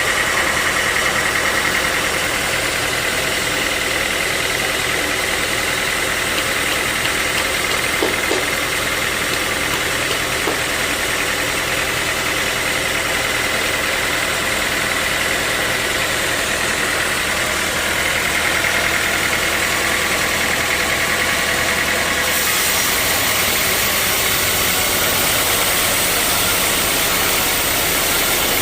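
Sawmill saw machinery running steadily, with a high whine over a dense mechanical noise. About three-quarters of the way through, the low hum drops away and the high hiss turns brighter.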